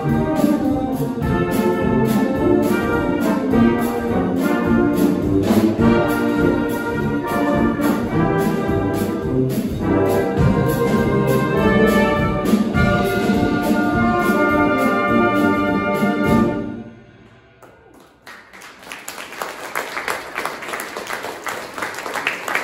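Brass band with drum kit playing to the end of a piece, the music stopping about sixteen and a half seconds in. After a short pause the audience starts applauding.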